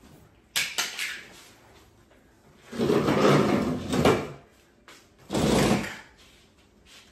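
A portable folding massage table with a wooden frame being handled and shifted: a few quick clicks, then a scraping, dragging noise lasting over a second, and a shorter, heavier knock-like sound near the end.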